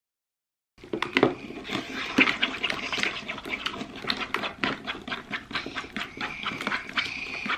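Sticky homemade slime being stirred in a small cup as the activator is mixed into the paint: a rapid, uneven run of wet squelching clicks that starts abruptly just under a second in.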